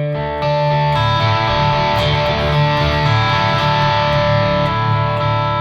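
Electric guitar played through three stacked overdrive pedals: chords struck in the first second and left to ring with a sustained, lightly driven tone.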